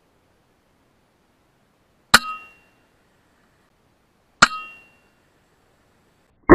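Suppressed FX Impact M3 .22 PCP air rifle firing twice, about two seconds apart. Each shot is a sharp crack with a brief ringing tail. Right at the end a louder ringing sound begins.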